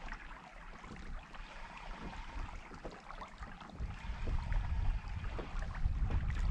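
Faint river ambience: water lapping at an inflatable boat's hull, with a few small ticks. A low wind rumble on the microphone swells from about four seconds in.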